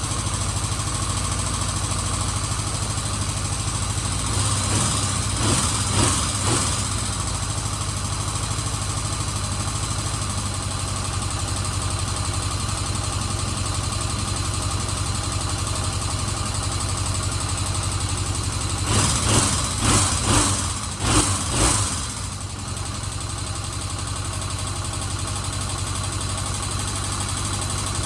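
1977 Kawasaki Z400's parallel-twin four-stroke engine idling steadily on half choke while it warms up after a cold start, with freshly refitted carburetors and no vacuum leaks. A few short louder swells come a few seconds in and again, more sharply, about two-thirds through, like brief blips of the throttle.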